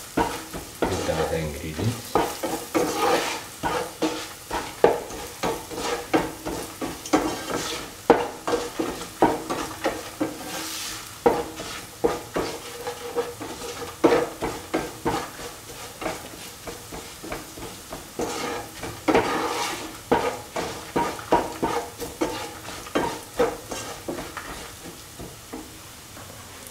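Slotted spatula scraping and stirring shallots, ginger, garlic, chillies and spice powders around a pan in hot oil, a stroke about every second, over a steady sizzle. The stirring stops near the end, leaving only the sizzle.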